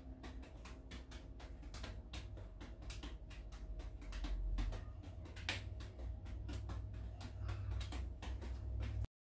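Light-up juggling balls smacking into the hands as they are caught in a three-ball pattern, about four catches a second, with one louder smack about halfway through, over a low steady hum. The sound cuts off suddenly near the end.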